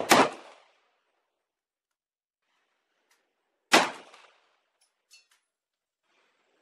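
Chiappa PAK-9 9mm AK-pattern pistol firing two single shots, one right at the start and one nearly four seconds later, each a sharp crack with a short echo. A few faint light ticks follow about a second after the second shot.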